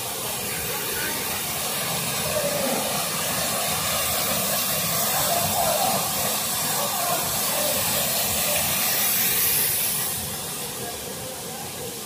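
Waterfall rushing: a steady hiss of falling water that grows a little louder through the middle and eases off near the end.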